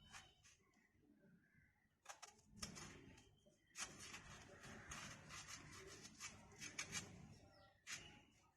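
Close-miked crunching and chewing of raw green mango, a dense run of crisp crunches starting about two seconds in and fading near the end.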